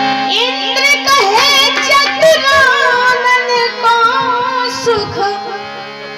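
A woman singing a devotional bhajan into a microphone: a long, wavering melodic run without clear words, over steady held notes from the accompaniment. The voice fades out near the end.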